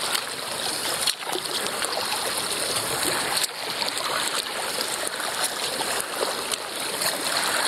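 Water splashing and trickling around a whitewater kayak as it is paddled, with drips and swishes from the paddle and hull.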